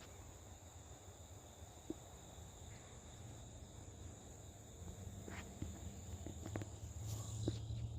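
Quiet outdoor ambience: a steady, high-pitched insect drone from crickets, with a few faint clicks and a low hum that grows a little louder in the second half.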